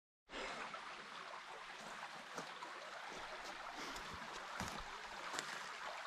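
Shallow forest stream trickling and babbling steadily over rocks.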